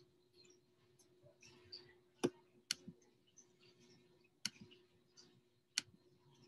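Scattered sharp clicks at a computer, four of them louder than the rest, with faint rustling between, as someone works the machine.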